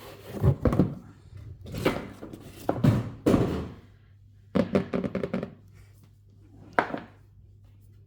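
Irregular thunks and knocks with some scraping, from a keyboard box and its packaging being handled and opened: about five separate bursts of handling.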